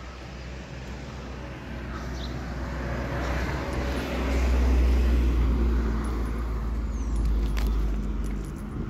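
A car driving past, its engine and tyre rumble growing louder to a peak about halfway through, then fading away.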